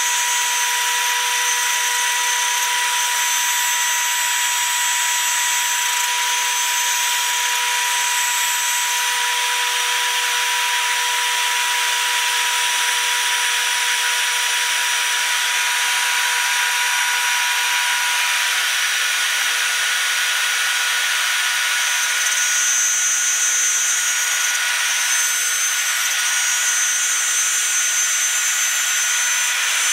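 Kress router spindle on a home-built Arduino/GRBL CNC machine running at high speed, a steady high whine over the hiss of the end mill cutting box-joint outlines into a wooden board. The pitch of the whine shifts slightly a little past halfway.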